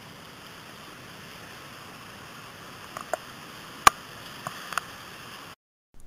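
Steady rush of whitewater rapids, with a few faint clicks and one sharp click about four seconds in; the sound cuts off suddenly just before the end.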